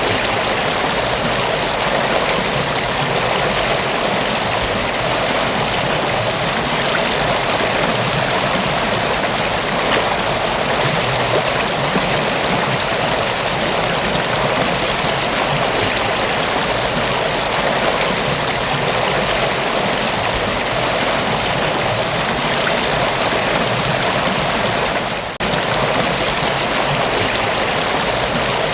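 Mountain waterfall rushing steadily, a dense, even roar of falling water that dips for an instant near the end.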